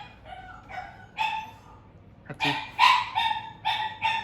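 Shiba Inu barking repeatedly: about eight short, high-pitched barks. The first few are quieter, and a quicker, louder run starts about two seconds in.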